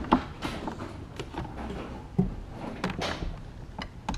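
Bar nut being retightened on a Stihl MS250 chainsaw: a few light clicks and knocks of the wrench on the nut and side cover, with a brief scrape about three seconds in.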